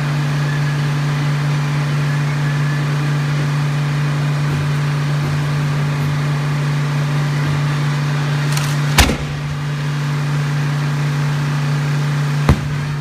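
Two sharp firework bangs from a burning castillo, a loud one about nine seconds in and a smaller one about three and a half seconds later, over a steady low engine-like hum.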